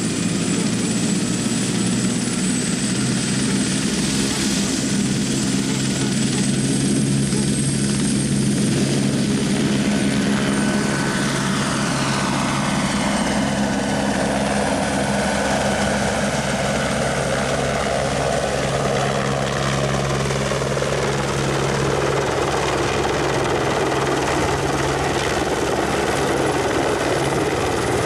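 Eurocopter Écureuil single-rotor turbine helicopter running at high power as it lifts off and climbs away: a steady turbine whine and rotor drone, with the rotor noise growing broader from about ten seconds in.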